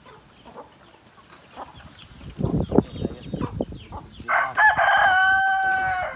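A rooster crows once near the end, one long call lasting nearly two seconds. Before it, chickens cluck low and chicks peep faintly.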